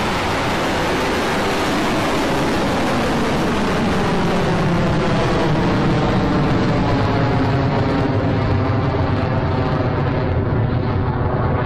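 Rocket Lab Electron first stage, its nine Rutherford engines at full thrust just after liftoff: a loud, steady rumble heaviest in the bass. The high end slowly fades as the rocket climbs away.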